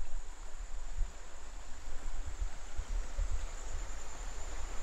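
Steady high-pitched insect drone of the rainforest, with irregular low rumbling on the microphone.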